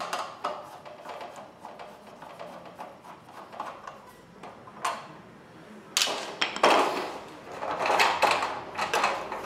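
Light screwdriver clicks, then about six seconds in louder scraping and clattering as a sheet-metal wiring cover is taken off a plastic fluorescent batten fitting and handled.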